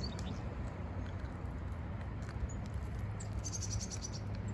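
Insects chirping, with a quick run of high-pitched chirps about three and a half seconds in, over a low steady hum.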